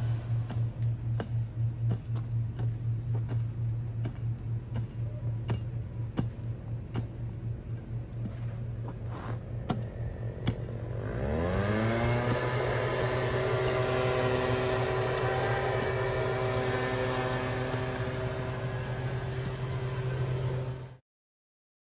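A machine hums steadily with a light, regular ticking; about eleven seconds in a motor spins up, its pitch rising and then holding as a steady whine, until the sound cuts off abruptly near the end.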